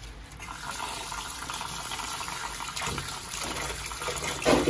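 Tap water running steadily into a stainless steel sink basin full of water as lettuce leaves are rinsed and swished by hand, with a few louder splashes, the loudest near the end.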